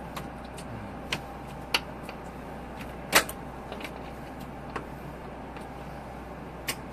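A few sharp clicks and knocks over a steady low hum, the loudest about three seconds in.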